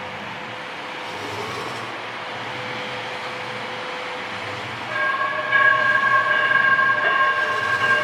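Light rail train running with a steady rumble, then its horn sounds about five seconds in: a loud chord held for several seconds.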